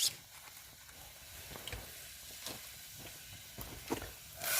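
Pan of stir-fry on a campfire: a faint hiss with small ticks, then near the end a sudden loud sizzle as water goes into the hot, oil-less pan.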